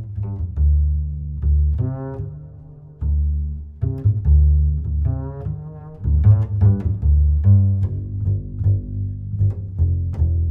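Background music played on low strings: plucked and bowed bass notes, with short notes mixed among longer held ones.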